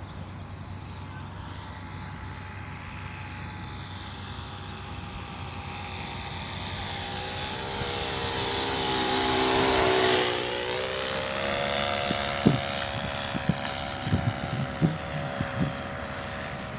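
A small propeller plane's engine flying past: the note grows louder, is loudest about ten seconds in, then falls in pitch as it passes and draws away. A few short knocks sound near the end.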